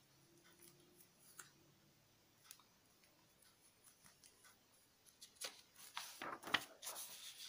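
A sheet of paper being handled: a few faint taps and ticks, then about five seconds in a written sheet is slid and turned aside, rustling in a quick run of scrapes for a couple of seconds.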